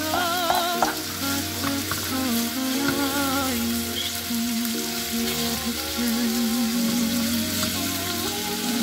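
Meat pieces in sauce sizzling in a frying pan while a slotted spatula stirs and scrapes them around, under background music with a wavering, vibrato melody.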